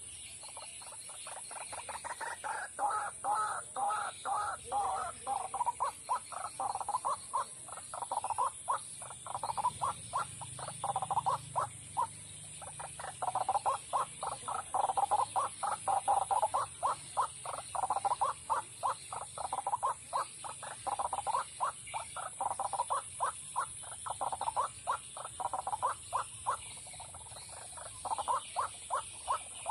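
White-breasted waterhen (ruak-ruak) calling: a long run of harsh, croaking notes at about four a second, swelling and fading in phrases.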